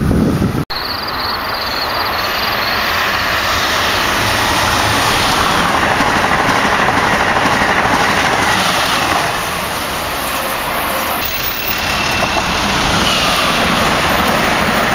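Amtrak Acela Express electric trainset passing close at speed: a steady rush of wheels on rail and air. The sound cuts out sharply for an instant just under a second in, and it changes about eleven seconds in as a second pass of an Acela trainset begins.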